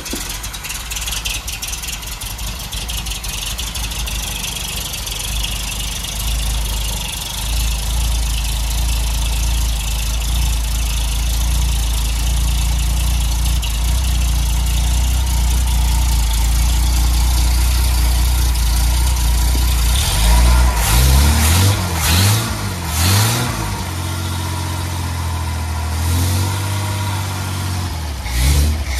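Bedford 300 six-cylinder engine running on an open exhaust with no silencer, on its first start after a rebuild that followed a failed number 6 exhaust valve. It runs unevenly for the first few seconds, then settles into a steadier idle. It is revved up and down several times about two-thirds of the way through, and briefly again near the end.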